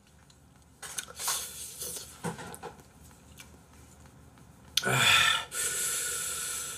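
A man breathing hard through his mouth against the burn of very spicy food: a few short hissing breaths in the first couple of seconds, then a loud huff about five seconds in followed by a long hissing breath.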